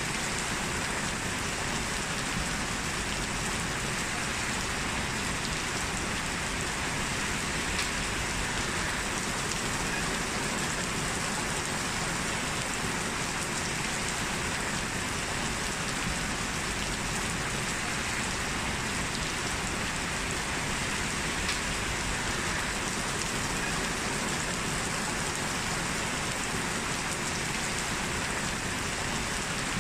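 Steady rain falling on surfaces, an even hiss with faint scattered drop ticks.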